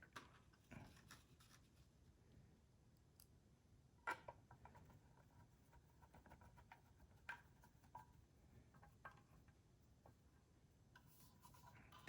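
Faint, scattered clicks and taps of plastic lens parts being handled and pushed into place in an LED par light fixture, the clearest about four seconds in.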